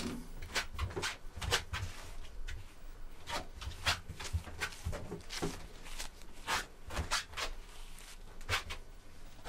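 Rustling and scraping of a long wig being pressed into place and combed on a man's head: a string of short, irregular brushing sounds.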